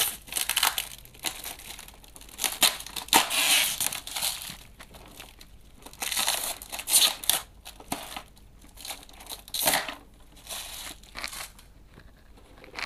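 Clear plastic wrapping crinkling and crackling in irregular bursts as it is pulled and crumpled off a toy box, dying down near the end.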